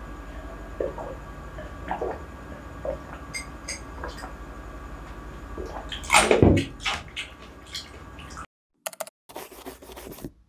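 Close-miked drinking from a glass: small swallows and wet mouth clicks. About six seconds in comes one loud breathy burst as the glass comes away. Then the sound cuts off, and a few short sounds follow.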